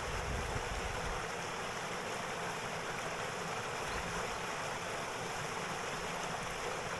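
Water pouring through a gap in an old stone weir into a pool on a small river: a steady rushing and splashing.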